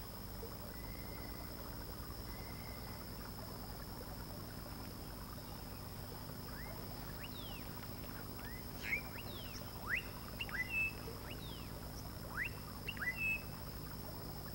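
Tropical riverside forest ambience: a steady high insect drone, joined about halfway through by a run of short, quick sweeping bird chirps, with a low hum underneath.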